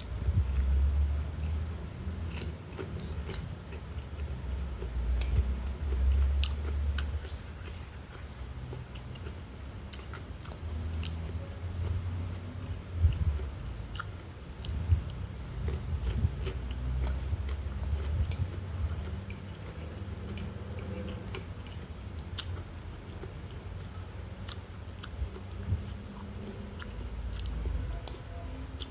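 Close-miked chewing and biting of food, with many small sharp mouth clicks and soft low thuds.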